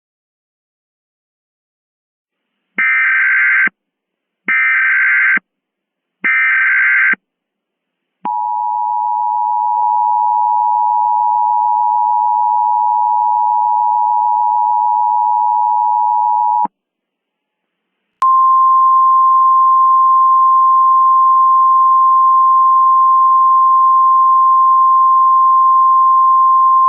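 Emergency Alert System tones. First come three short bursts of SAME header data, each about a second long. Then the two-tone attention signal sounds steadily for about eight seconds, and after a brief gap a single steady tone of about 1050 Hz, the weather-radio alert tone, runs for about ten seconds.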